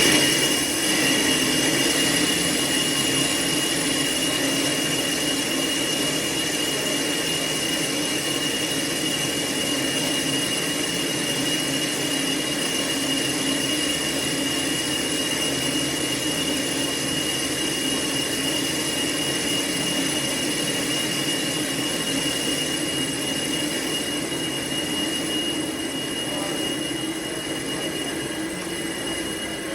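Metal lathe turning a motor pulley, running steadily with a high-pitched metallic whine from the cut over the machine's noise.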